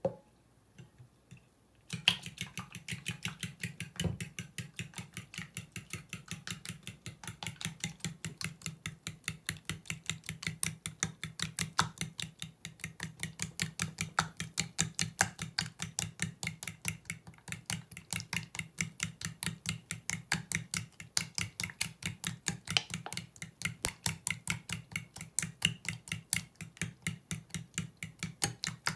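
Metal spoon stirring beaten eggs and condensed milk in a ceramic bowl, clinking against the bowl's side in a quick, steady rhythm of several strokes a second that starts about two seconds in.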